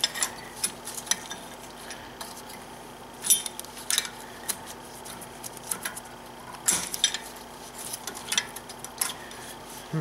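Scattered metallic clicks and clinks of a steel brake caliper spring clip being worked into place under tension on the caliper, at irregular intervals, the loudest clink a little over three seconds in.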